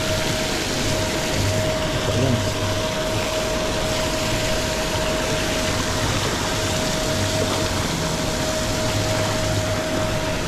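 Paddlewheel aerators churning and splashing pond water in a steady rush, with a steady hum running through it.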